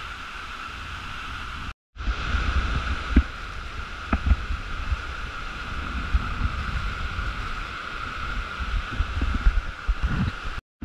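Mountain stream cascading down a rocky canyon gully with a steady rushing sound, under irregular deep thuds. The sound cuts out for a moment about two seconds in.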